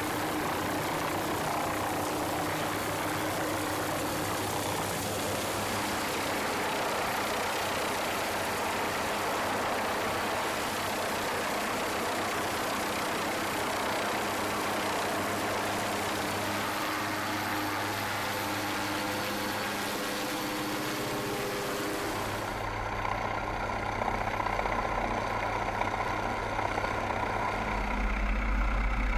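MQ-8B Fire Scout unmanned helicopter running with its rotor turning: a steady turbine and rotor noise. About 23 seconds in it changes to a deeper, duller rumble that grows louder near the end.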